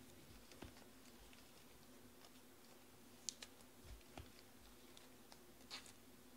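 Near silence: room tone with a low hum and a handful of faint, scattered clicks, the clearest about three seconds in and near the end.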